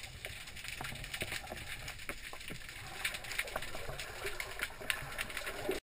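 Underwater ambience picked up by a GoPro inside its waterproof housing: a muffled low rumble of moving water with frequent small clicks and crackles.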